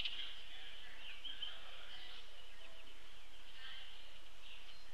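Songbirds chirping and singing: a steady, high chorus with short calls scattered through it.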